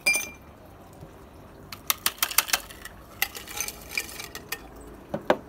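Ice cubes clinking and tumbling from a metal cocktail shaker tin into a glass tumbler, in irregular clusters of sharp clicks.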